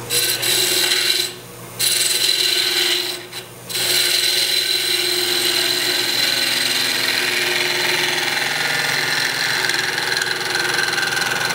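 Spindle gouge cutting the end of a wooden spindle spinning on a wood lathe: a steady hiss of the cut with the lathe running, broken by two short pauses in the first four seconds as the tool is lifted off.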